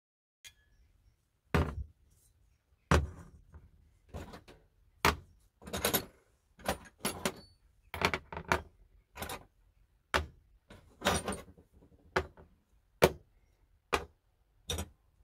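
Rubber hammer tapping again and again on the old bench grinder's metal motor housing to knock it apart: a string of sharp knocks at irregular spacing, about one or two a second.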